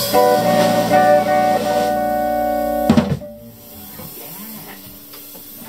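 Small jazz combo of electric guitar, electric bass and drum kit holding a final chord over washing cymbals, then stopping together on one last drum hit about three seconds in; faint ringing strings remain after the cut-off.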